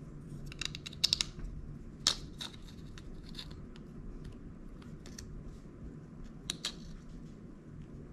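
Light clicks and scrapes of a small plastic-and-metal carburetor and gasket being worked onto the mounting bolts of a two-stroke string trimmer engine by hand. A quick cluster of clicks comes about a second in, a sharper single click at about two seconds, and another pair near the end.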